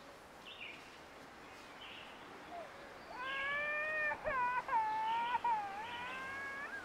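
A long wailing cry begins about halfway through, first held, then breaking into short wavering rises and falls. Faint chirps repeat about once a second underneath.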